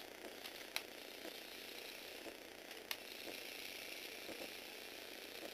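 Small electric gearbox motor (Tamiya universal gearbox) and plastic Lego gears running with a steady whirr, with two sharp clicks, about a second in and near the middle.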